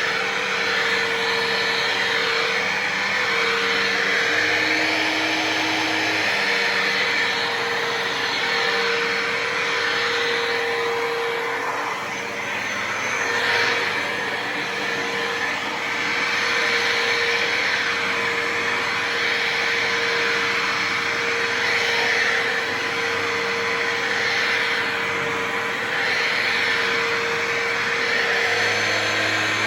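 Dirt Devil Vision MVP Swivel Glide upright vacuum cleaner running steadily, a constant motor tone under a rush of air.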